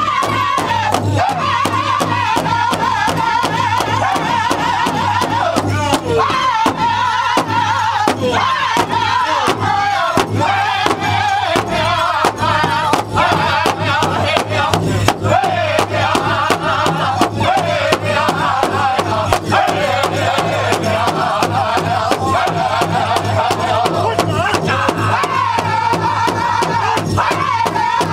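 Powwow drum group singing a Grand Entry song: several voices singing high in unison over a steady, even beat on a large shared drum.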